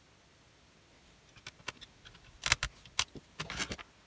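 Light clicks and small metallic rattles from a screwdriver and small laptop parts being handled and set down, in a few quick clusters starting about a second in.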